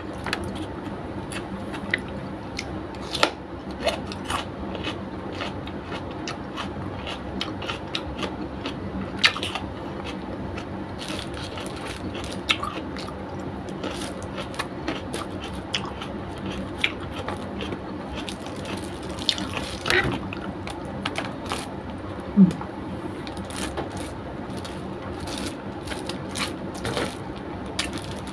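Close-up mukbang eating sounds: wet chewing and lip smacks of chicken adobo and rice eaten by hand, with many short sharp clicks scattered throughout, over a steady low hum.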